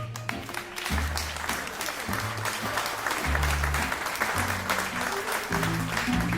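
Audience applauding, starting just after the opening and fading near the end, over a double bass playing long low notes with acoustic guitar accompaniment; the applause follows a jazz violin solo.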